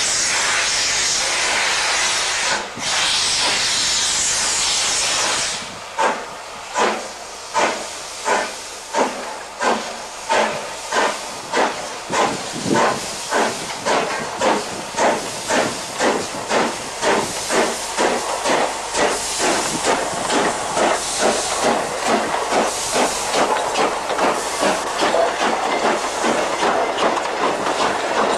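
Steam locomotive No. 171, a GNR(I) S class 4-4-0, starting away with its train. For about five seconds there is a loud, steady hiss of steam from the open cylinder drain cocks. Then separate exhaust chuffs begin, about one a second, and come faster and faster to two or more a second as it gathers speed.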